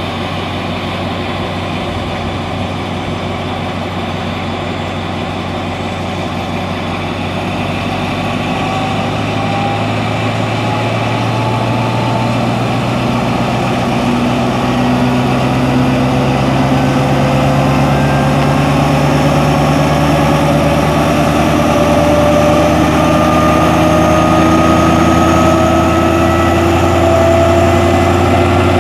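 Alsthom diesel-electric locomotive 4305 standing with its train, its diesel engine running steadily and then, from about a third of the way in, gradually rising in pitch and getting louder as it is throttled up to build air-brake pressure to the required level.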